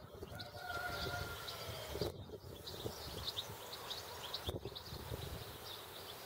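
Small birds chirping repeatedly over a steady low background rumble, with a couple of light knocks about two and four and a half seconds in.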